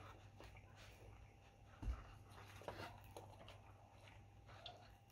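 Near silence: faint sounds of people eating pizza, with soft chewing, a few small clicks, and a soft low thump about two seconds in.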